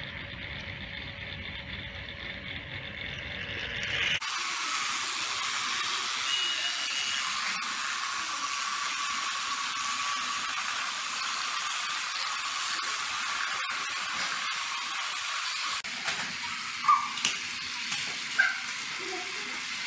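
Battery-powered Thomas & Friends toy trains running on plastic track, a steady motor whir and hiss that changes abruptly about four seconds in. A few short, sharp clacks come near the end.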